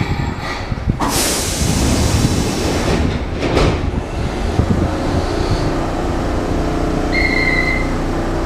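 Enshū Railway electric train standing at a platform: a steady low equipment rumble, with a sharp burst of air hiss about a second in and another around three and a half seconds. A short half-second beep sounds near the end.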